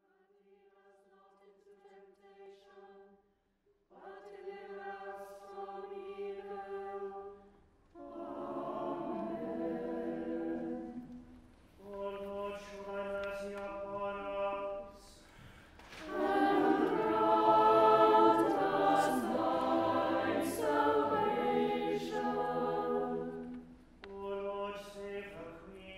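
Unaccompanied sung preces of Evensong: a cantor chants each versicle alone, mostly on one held note, and the choir answers each time in harmony. The exchange goes round three times, and the choir's longer answer in the middle is the loudest part.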